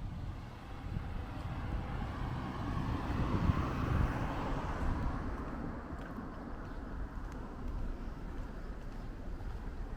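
A motor vehicle passing on a street, its noise swelling to a peak a few seconds in and then fading away, over a low steady rumble.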